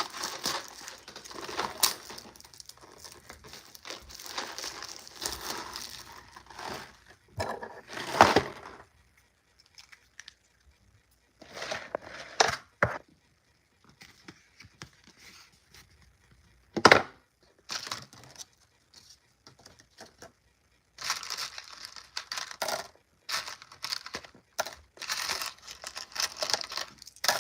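Intermittent crinkling and rustling in short bursts with quiet gaps, broken by a few sharp knocks, the loudest about two thirds of the way in.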